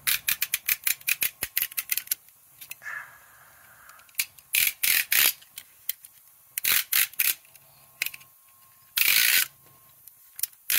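A utility knife with a long metal blade handled close up: a fast run of ratcheting clicks over the first two seconds, then a few short scraping bursts later on.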